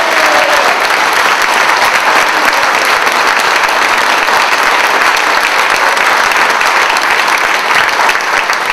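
An audience applauding: dense, steady clapping that holds level throughout.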